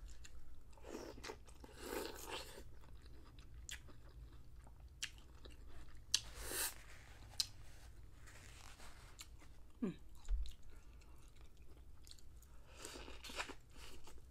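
A person biting and chewing boiled corn on the cob close to the microphone, with irregular wet crunches and mouth clicks.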